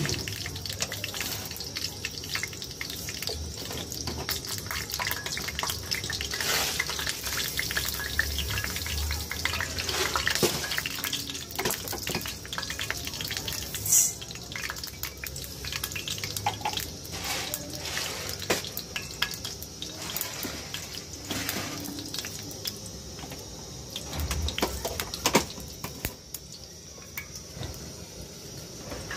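Water splashing and trickling over grain and pulses in a stainless steel bowl, with small clicks and rattles against the metal and a sharp clink about halfway through.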